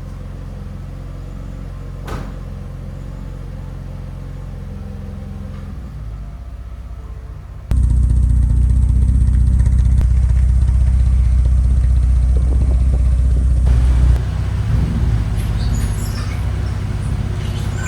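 Car engine running steadily, heard in three cut-together clips; the middle one is louder and deeper.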